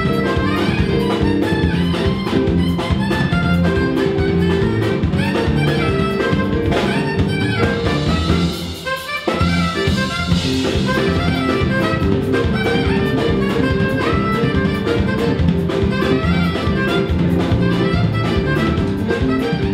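Live band playing up-tempo Martinican dance music, with saxophone over keyboard and drum kit. The music briefly drops in level about halfway through.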